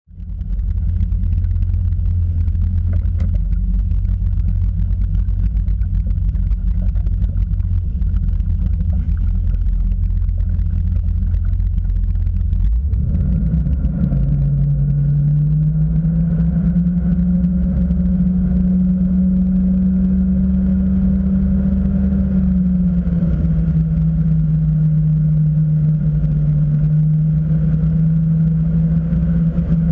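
Inboard engine of a 2011 Centurion Enzo SV230 wakeboard boat, heard from the cockpit: a low rumble at first, then from about halfway through a steady engine note that rises in pitch as the boat gets under way. The note holds level, then eases slightly lower a few seconds later and stays there at cruising speed.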